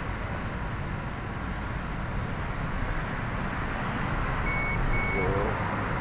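Two short, steady electronic beeps from a multimeter's continuity tester about four and a half seconds in, as the probe touches the injector connector's wire: the tone means the wire has continuity and is intact. A steady rumble like traffic or a running engine goes on underneath.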